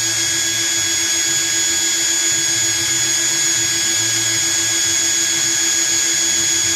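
Twin 40 mm electric ducted fans running steadily on a 3S battery: an even, high-pitched whine over rushing air, holding the same speed throughout.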